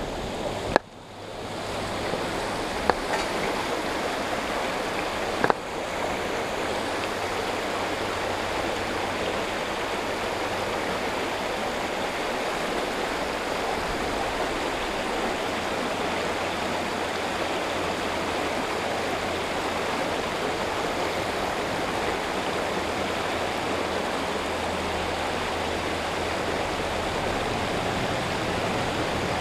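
Shallow creek water rushing steadily over rocks in a fast riffle. It is a constant, even rush, broken by three sharp clicks in the first six seconds.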